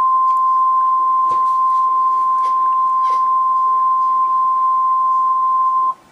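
Emergency alert attention tone: a single steady, loud pitch of about 1 kHz, the 1050 Hz warning alarm tone of NOAA Weather Radio, which cuts off suddenly near the end. Faint clicks of static lie beneath it.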